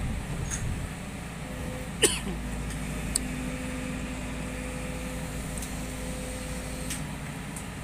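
Excavator's diesel engine and hydraulics running steadily while it swings and empties its bucket, with a faint steady whine. One sharp knock about two seconds in, and a smaller click about a second later.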